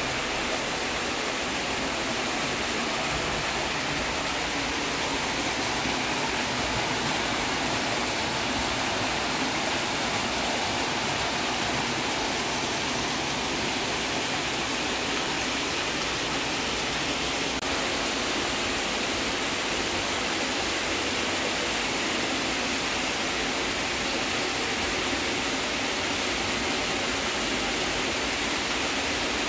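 Heavy rain falling steadily: a dense, even hiss of drops striking water and ground.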